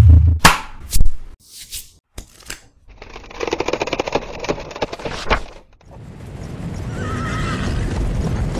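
A string of animation sound effects: a few sharp knocks and a short whoosh, then a rapid clattering for a couple of seconds, and near the end a horse whinnying over a swelling rush of noise.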